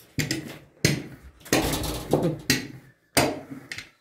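Wooden rolling pin rolling out dough on a tabletop, in about six separate strokes with knocks and rumbling.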